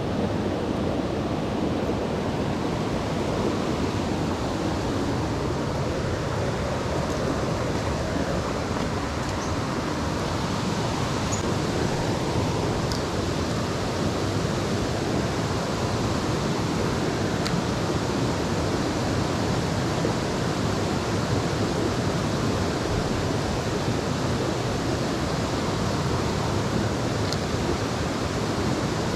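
Steady rushing of a fast-flowing stream: an even, unbroken hiss of moving water with a few faint, short ticks over it.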